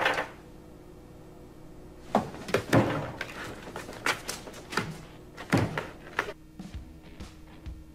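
A series of loud thumps and bangs, like objects knocked and slammed on furniture: one sharp hit at the start, a cluster about two seconds in, then single knocks spaced through the middle of the stretch.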